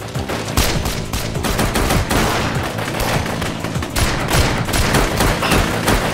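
A sustained firefight of rapid assault-rifle fire, with many shots in quick, irregular succession and overlapping.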